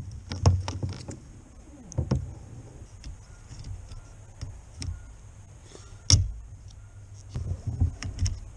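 Plastic clicks and knocks of a replacement wiper blade being handled and pushed onto a car's wiper arm. There is a sharp click about six seconds in and a quick run of smaller taps near the end.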